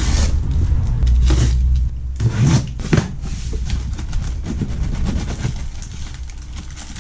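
A cardboard box being opened and its crumpled kraft packing paper rustled and pulled about by hand, with several sharp rustles in the first three seconds and steady crinkling after. A low rumble runs under the first two seconds.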